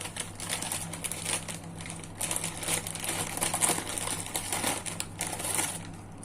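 Plastic bag of krupuk (crackers) crinkling and rustling as it is handled, dying away near the end, over a steady low hum.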